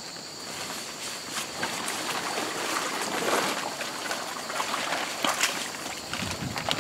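Water trickling and splattering, with irregular small clicks and rustles. A steady high chirring of crickets runs underneath.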